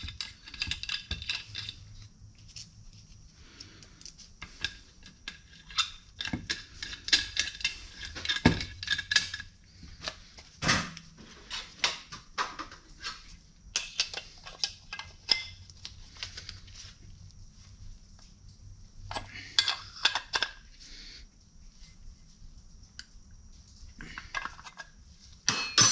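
Small metal parts and hand tools clinking and clicking in irregular clusters with short ringing, as brake line fittings are threaded and snugged into a master cylinder's ports.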